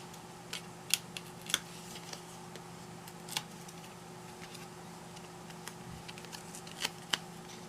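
Hands handling small card and paper pieces on a craft table: a scattering of light, sharp clicks and taps, a few in the first two seconds, one about three and a half seconds in and two near the end, over a faint steady hum.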